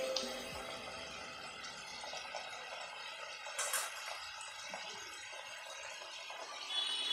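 Phali fish in mustard gravy simmering in an aluminium kadai, a faint steady bubbling hiss. A brief louder noise comes about three and a half seconds in.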